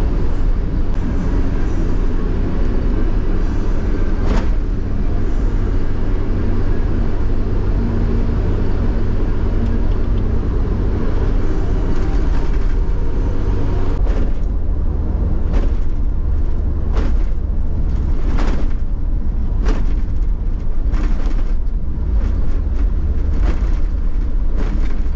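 Car road noise heard from inside the cabin: a steady low engine and tyre drone at highway speed. From about halfway through, short thumps come about every second and a half as the tyres cross the joints of a concrete slab road.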